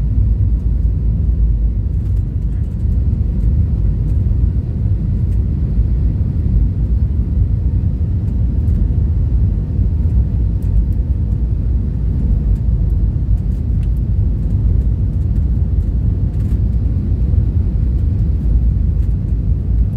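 Steady low rumble of jet airliner cabin noise in flight, the engines and airflow heard from a window seat, with a faint steady hum.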